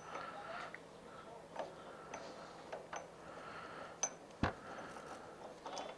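Scattered light clicks and taps of metal bike parts being handled, with one sharper knock about four and a half seconds in, as a wheelie peg bolt is worked by hand and fails to catch its threads.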